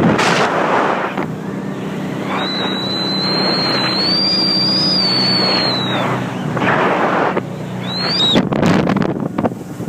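Speedboat engine running steadily under wind and water rush. A high thin tone holds for a few seconds in the middle, and a short high tone rises and falls near the end.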